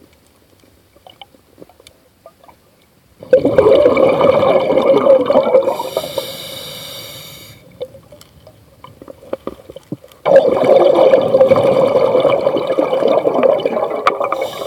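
A scuba diver breathing through a regulator underwater. A long exhalation of rushing bubbles starts suddenly about three seconds in and fades. A short hiss follows as the diver inhales. A second exhalation of bubbles starts suddenly about ten seconds in.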